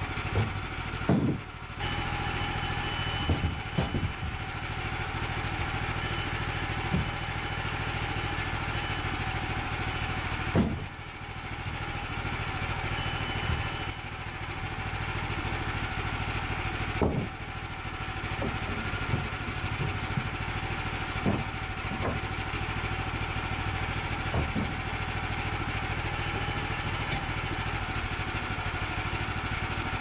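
Portable bandsaw sawmill's gas engine running steadily at idle, with several short knocks of wood and metal as the blank and sawn boards are handled on the mill bed.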